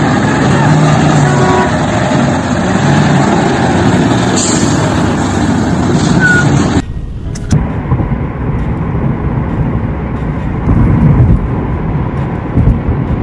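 Heavy dump truck engines running, a dense mechanical rumble. About seven seconds in it cuts abruptly to a quieter, steady road rumble of vehicles driving on a highway.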